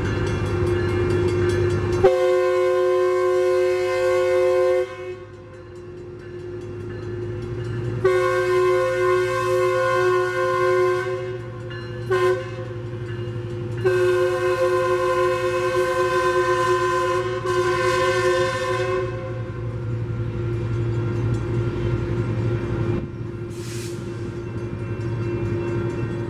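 Metrolink diesel locomotive horn sounding the grade-crossing signal: two long blasts, a short one, then a long one, as the commuter train rolls through the crossing with the train's rumble underneath.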